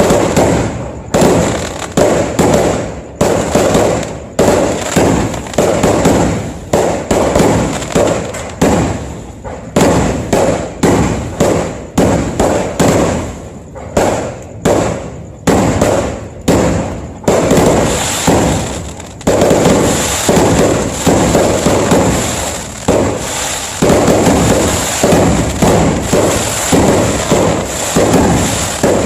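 Fireworks going off in a rapid, continuous barrage of loud bangs, several a second, each fading quickly.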